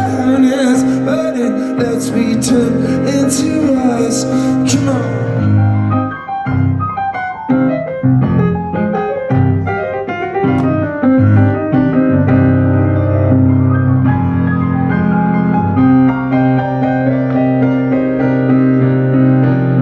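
Song music: the full band with cymbal crashes drops out about five seconds in, leaving a piano playing chords on its own.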